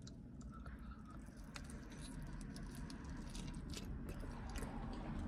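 Faint chewing of a chicken wing: a scatter of small mouth clicks and smacks.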